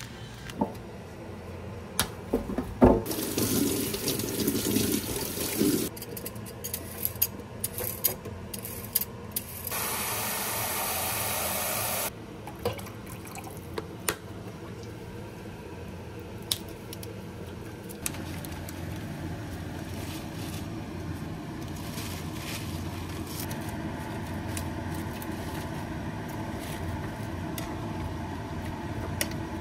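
Kitchen work: water from a tap running and being poured into a stainless steel bowl, with scattered clicks and knocks of utensils and containers. A steady low hum fills the second half.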